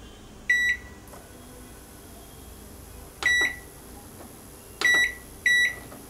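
Black Beauty microwave oven's control panel giving four short, high beeps as its cooking time is set on the dial and buttons.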